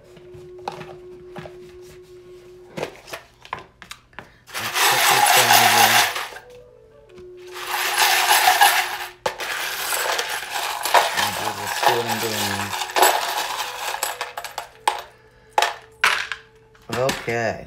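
A handful of small charms being shaken and rattled together, twice, then cast out so they clatter and clink as they scatter and settle, with scattered clicks afterwards as they are handled.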